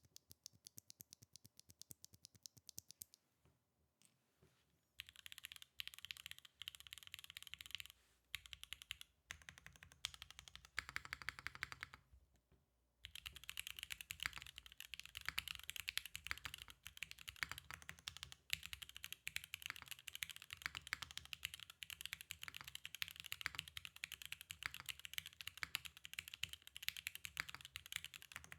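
Mechanical keyboard with Gateron x Bowl L'Orange linear switches, a carbon fibre plate and PBT keycaps, being typed on with a clacky sound. Separate, evenly spaced key presses come first, then a short pause, then bursts of typing, and from about 13 seconds in, steady fast typing.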